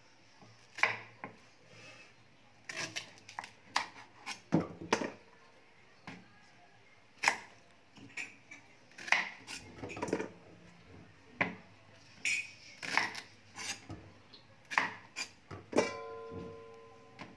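Kitchen knife chopping the ends off unripe green bananas on a chopping board: irregular sharp knocks, with cut pieces clattering into a stainless steel bowl. A short ringing tone sounds near the end.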